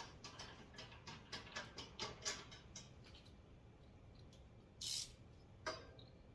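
Hand screwdriver tightening a screw into the rack frame: light, regular clicks about four a second for the first three seconds, then a short scrape about five seconds in and one more click.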